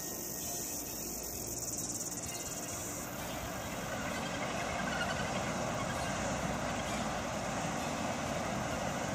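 Insects chirring in a high, steady pulsing drone for about the first three seconds. Then a steady rushing noise of surf and wind takes over and grows a little louder.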